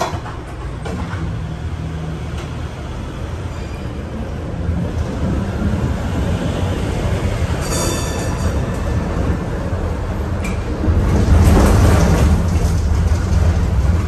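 Interior of a moving PCC streetcar: a steady low rumble of the car running on its rails, growing louder about eleven seconds in. A brief high-pitched wheel squeal comes about eight seconds in.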